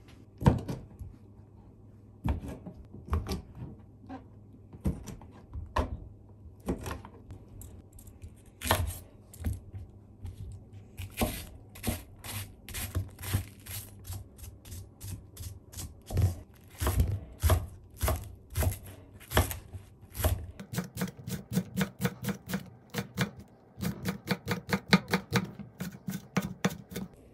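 Kitchen knife cutting on a cutting board: spaced single cuts through boiled shrimp, then slicing a long green onion on a wooden board. Near the end it turns into fast, even chopping at about five strokes a second, with a short pause.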